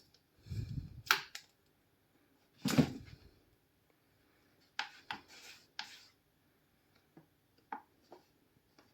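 Scattered light knocks and clicks with a couple of dull thumps, made by a cat moving about its cage at night.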